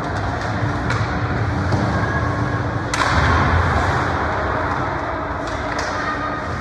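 Ice hockey play in a rink: scattered sharp clicks of sticks and puck over steady rink noise, with a sudden louder burst about three seconds in, like a puck or player hitting the boards.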